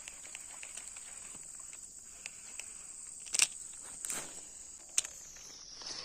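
Steady high-pitched buzzing of insects, with a few sharp clicks a little past halfway. Near the end the high tone starts to slide down in pitch.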